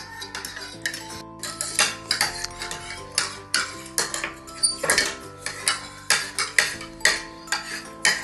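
Metal spoons clinking and scraping against plates in quick, irregular strikes as noodles are eaten, over steady background music.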